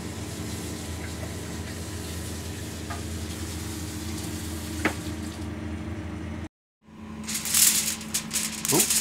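Prime rib steak sizzling on an indoor grill, a steady hiss over a low hum. After a brief break about six and a half seconds in, the sizzling comes back louder and crackling.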